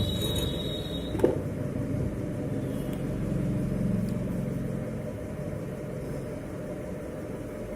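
A steady low rumble. A high steady tone stops about a second in, and a brief sharp sound follows just after.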